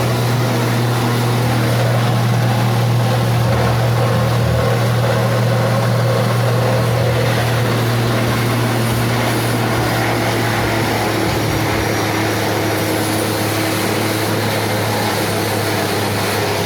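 Forage chopper machine running steadily, its motor giving a constant low hum under a wash of noise.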